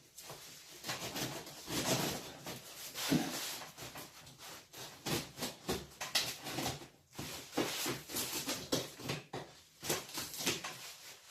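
Lid of a large cardboard shipping box being pulled off and its flaps worked open: irregular rustling, rubbing and scraping of cardboard.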